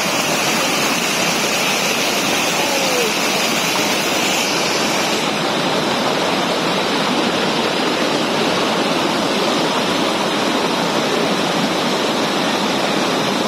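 Whitewater rapids of a rocky mountain stream rushing over and around boulders, a loud, steady sound of water; its highest hiss thins a little about five seconds in.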